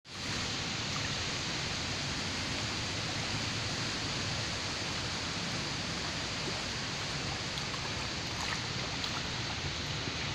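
Steady wind over a lake with small wind-driven waves washing against the shore, heard as a continuous, even rush.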